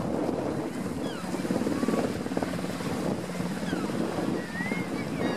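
Coastguard search-and-rescue helicopter in flight, its rotor and turbines giving a steady, rapid beating rush.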